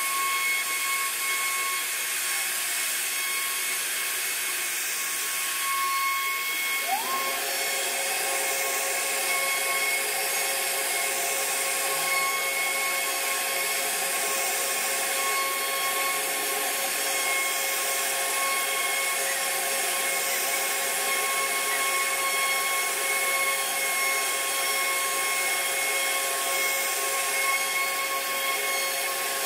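CNC router spindle running at high speed, its cutter carving relief scrollwork into a wooden panel: a steady high whine over a hiss. About seven seconds in a tone slides upward and a lower steady whine joins.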